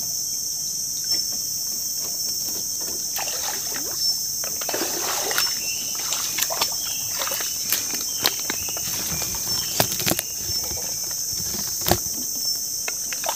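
Water sloshing and splashing as a person wades through shallow swamp water, with scattered knocks and clicks, over a steady high-pitched drone of insects.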